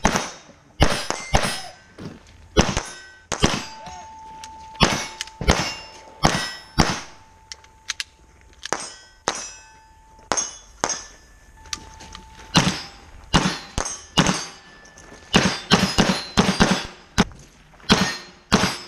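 Rimfire pistol firing strings of shots, a few to a second with short pauses between strings, at steel plates that clang on each hit. Some plates keep ringing as a steady tone for a second or more after they are struck.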